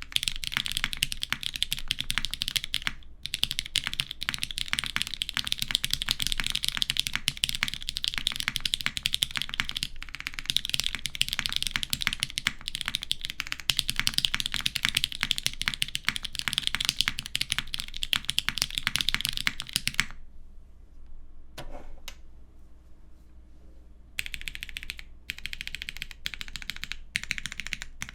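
Fast typing on a custom mechanical keyboard with lubed vintage Cherry MX Brown tactile switches on a polycarbonate half plate and GMK keycaps: a dense, continuous patter of keystrokes. About twenty seconds in the typing stops for a few seconds, with a single faint click in the lull, then resumes.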